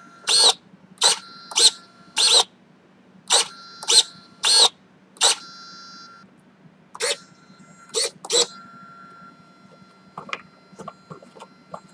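Small hobby servo tilting the MiniHawk's front-motor nacelle in quick, repeated moves: about a dozen short, sharp whirs over the first eight seconds, with a steady high whine between moves as it holds position. Near the end, fainter clicks and taps as the nacelle is handled.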